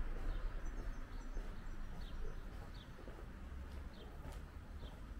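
A small bird chirping: short, falling chirps repeated every half second to a second, over a steady low rumble.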